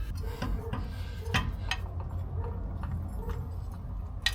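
A few light metallic clicks and clinks of hand tools and hardware over a steady low hum.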